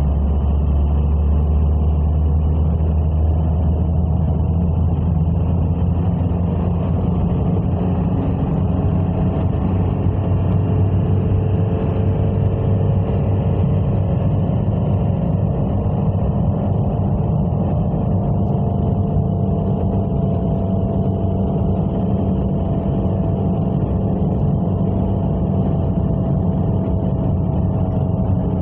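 A car driving along at a steady pace: continuous low engine and road rumble with a faint hum that drifts slowly in pitch.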